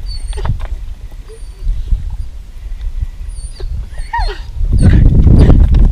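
Wind rumbling on the microphone, much heavier from about three-quarters of the way in, with short high chirps scattered through and a dog giving a brief falling whine near the end.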